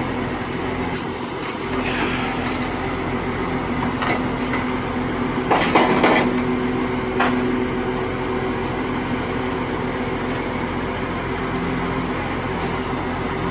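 Heavy diesel engine running steadily, with a few metallic knocks and a louder clatter about six seconds in.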